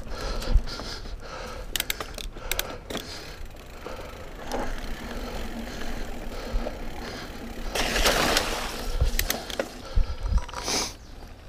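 Mountain bike rolling over dirt singletrack: tyre noise with scattered clicks and rattles from the bike. A louder rush of noise comes about eight seconds in.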